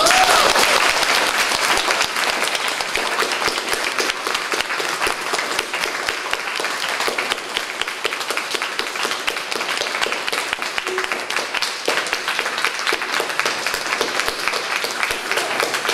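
Audience applauding with dense, steady clapping, loudest at the start and easing off slightly.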